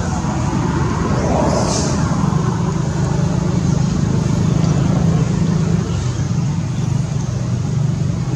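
A motor vehicle's engine running steadily with a low hum, with a short hiss about two seconds in.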